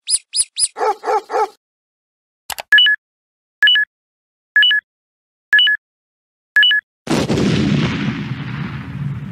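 Cartoon sound effects: three quick high squeaks and three short bark-like calls, then a time bomb's countdown timer beeping five times, about once a second, each beep a quick double tone. About seven seconds in, a loud explosion goes off and rumbles on.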